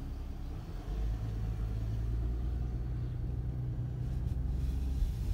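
Car engine and low rumble heard from inside the cabin as the car pulls forward slowly. The rumble swells about a second in and then holds steady.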